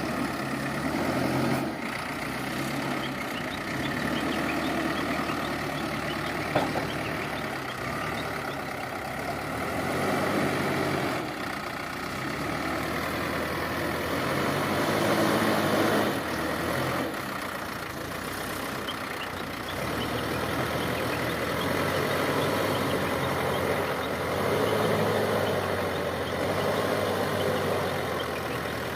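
Heavy diesel engine running under changing load, its revs rising and falling in several swells.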